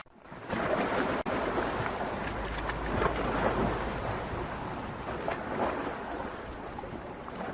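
Steady rushing of river water, a continuous noisy wash with small splashes and crackles through it.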